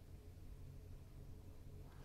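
Near silence: a faint, steady low room hum.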